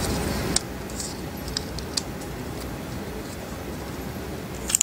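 Thin plastic screen-protector film being handled and peeled by hand, giving a few sharp crackles and clicks over steady background hiss that drops in level about half a second in.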